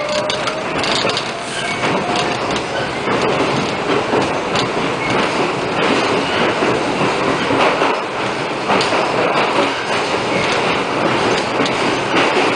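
Subway train running through a tunnel, heard from inside at the front window: a loud, steady rumble of wheels on rail with rapid clicks and rattles. A faint rising whine fades out about two seconds in.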